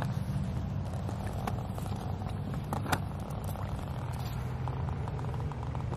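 A steady low hum, with a few light clicks and rustles of the camera being handled close to grass and rocks.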